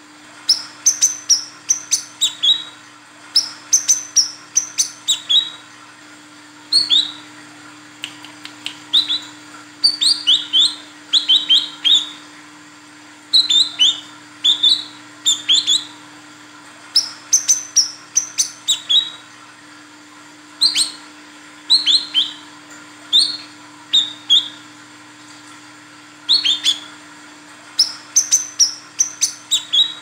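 Female brown-throated sunbird (kolibri kelapa, wiceh) calling: sharp, high, downslurred chirps in quick clusters of two to five, repeated every second or two with short pauses between.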